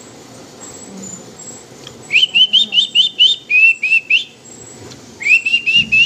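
Rapid series of short, rising whistled notes, about seven a second, in two runs of about two seconds each: the first starts about two seconds in and drops a little in pitch halfway, the second starts about five seconds in.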